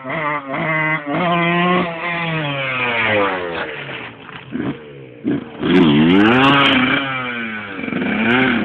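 Motorcycle engine revving hard under throttle. Its pitch climbs and drops again and again as the rider opens and closes the throttle and shifts gears, with a brief lull about five seconds in and the loudest stretch about six seconds in.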